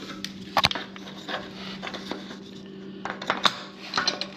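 Scattered light knocks and clicks of an engine mount block being handled and test-fitted against the chassis, the sharpest about half a second in and a cluster near the end, over a steady low hum.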